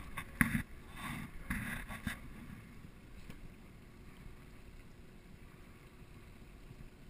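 Wind on the microphone and choppy water around a small boat, with a few sharp knocks in the first two seconds, the loudest about half a second in.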